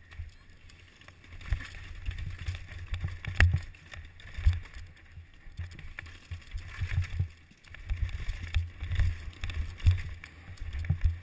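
Downhill mountain bike ride heard from a helmet-mounted camera: a gusting low rumble of wind on the microphone, with knocks and rattles as the bike jolts over pavement and stone steps.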